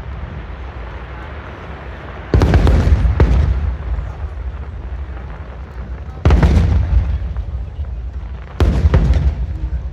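Aerial firework shells bursting: three deep booms, about two and a half seconds in, about six seconds in and near the end, each rumbling away over a second or so.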